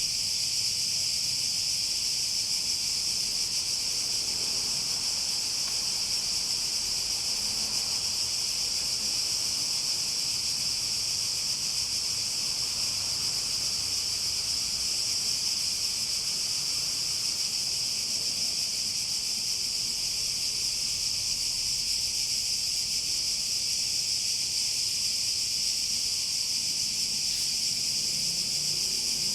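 Cicadas singing in a steady, continuous high-pitched buzz that holds at an even level without pulsing.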